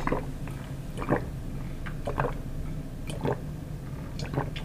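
A person gulping a drink down from a glass mason jar, a swallow about once a second.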